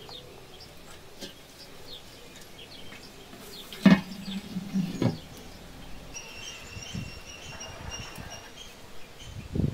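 A clay cooking pot and its lid knocking sharply about four seconds in, with a second knock a second later, as the lid is handled with a cloth over the steamer. Birds chirp and insects buzz in the background, and a steady high insect buzz starts about six seconds in.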